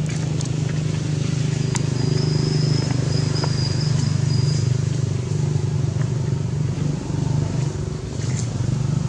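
A steady low mechanical hum, engine-like, with a thin high steady whistle from about two seconds in to almost five seconds.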